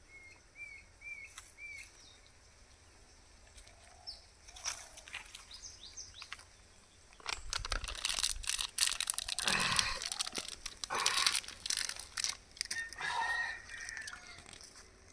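A few small bird chirps at the start, then from about halfway through a loud spell of crunching and rustling on dry leaves and gravel that lasts several seconds.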